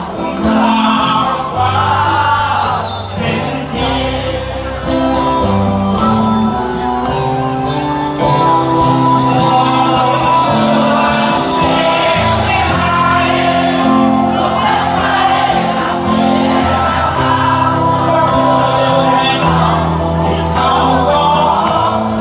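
A live rock band playing through a concert PA: a male lead singer sings over acoustic guitar, keyboard, bass and drums.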